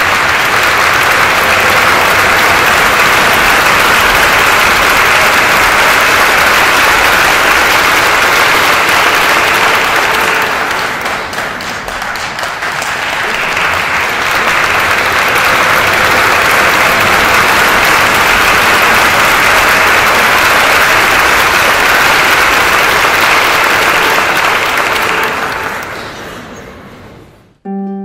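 Audience applauding: steady clapping that eases off about eleven seconds in, swells again, then dies away near the end.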